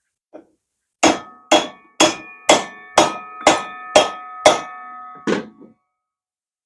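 Hammer blows on metal, nine strikes about two a second with a metallic ring that carries on between them. The last blow comes after a slightly longer pause.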